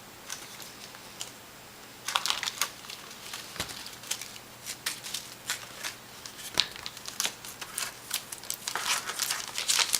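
Paper crinkling and rustling in irregular bursts, heaviest a couple of seconds in and again near the end, as gift wrapping or a card is handled.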